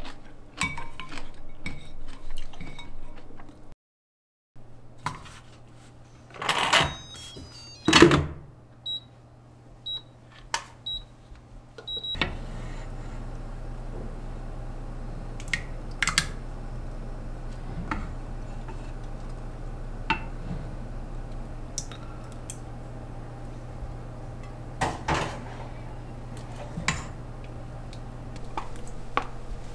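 Dishes clink twice, then an appliance keypad beeps about six times and a microwave oven starts running with a steady low hum. A few light clicks and knocks sound over the hum.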